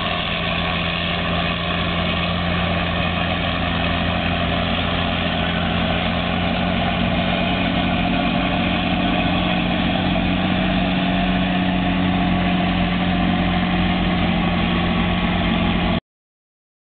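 John Deere 7400 self-propelled forage harvester chopping maize, its engine and cutterhead making a steady, loud drone with a low hum, mixed with the tractor pulling the silage wagon alongside. The sound cuts off abruptly near the end.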